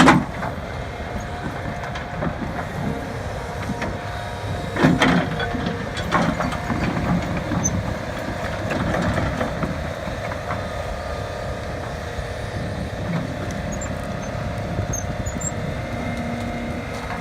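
Doosan DX180LC 18-tonne excavator at work: its engine running steadily, with a few knocks from the bucket as it shifts debris, the loudest about five seconds in.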